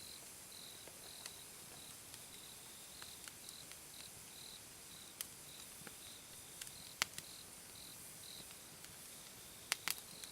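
Campfire wood crackling, with scattered sharp pops, the loudest about seven seconds in and a quick cluster near the end. Underneath, an insect chirps steadily, about two high chirps a second.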